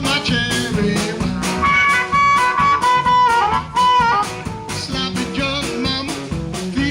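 Blues band playing live: guitar and drums under a lead line of long, bending held notes in the middle.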